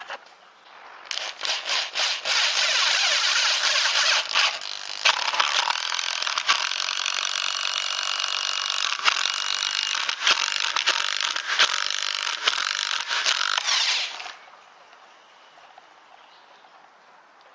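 Power drill driving a 75 mm stainless steel decking screw into un-predrilled hardwood. The drill starts in short bursts, then runs hard and steadily with scattered clicks, and stops abruptly near the end when the screw snaps off.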